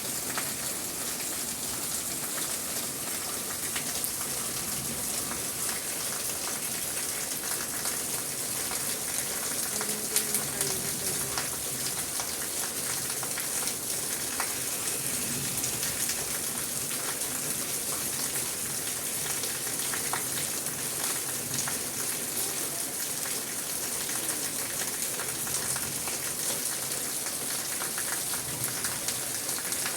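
Steady rain falling, with a dense hiss of drops and scattered individual drop ticks.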